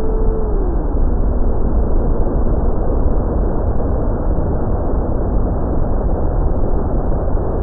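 Onboard audio from an FPV racing wing in flight: wind rushing over the camera's microphone with a strong low rumble, and the electric motor and propeller tone gliding down in pitch about half a second in as the motor slows, then fading under the wind noise.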